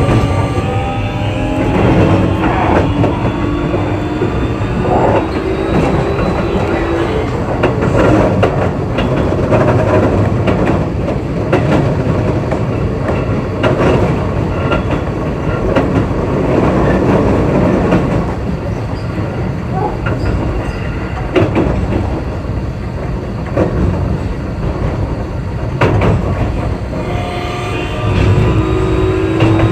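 Keio 8000 series electric train running on the line. Its traction motor tones change pitch at the start and again near the end, and in between the wheels give steady running noise with frequent rail-joint clicks.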